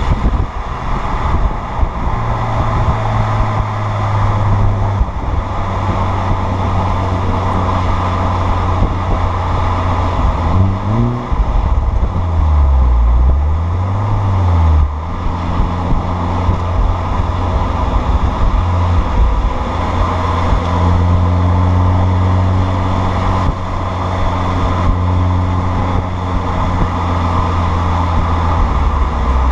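Audi A4 B6 running through a Borla 140100 cat-back exhaust: a steady low exhaust drone whose pitch rises and falls a few times about halfway through and climbs again at the end, over constant road and wind noise.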